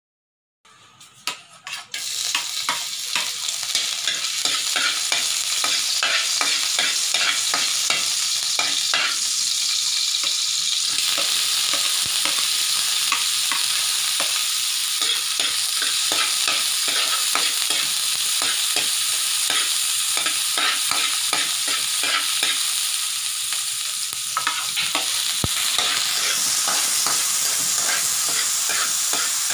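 Chopped garlic and onion sizzling loudly as they are sautéed in hot oil in a wok, with the clicks and scrapes of a utensil stirring them. The sizzle starts suddenly about two seconds in, after a few clicks.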